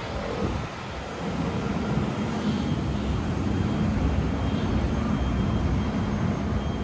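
A Danhai light rail tram running alongside the platform, giving a steady low rumble that grows louder about a second in and then holds.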